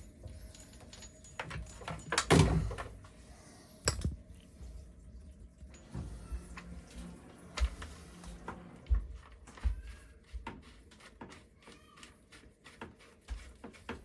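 Scattered knocks, clicks and scrapes of a hose and its fittings being handled and fastened onto a small submersible sump pump, with the loudest clatter about two seconds in.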